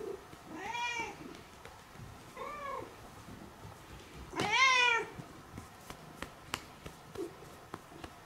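Domestic cat meowing three times, each call rising then falling in pitch, the third the longest and loudest.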